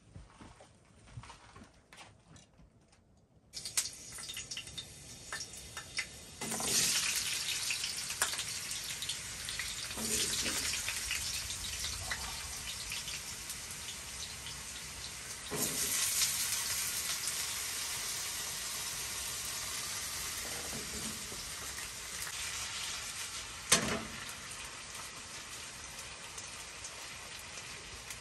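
Potatoes frying in hot oil: a steady sizzling hiss starts suddenly a few seconds in and surges twice, once at about six seconds and again at about sixteen. One sharp knock sounds near the end.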